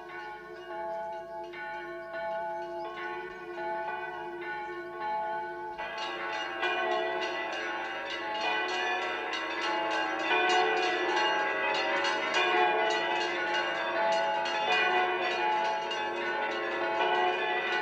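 Several church bells of different pitches pealing together without a break. About six seconds in, the ringing grows louder and fuller.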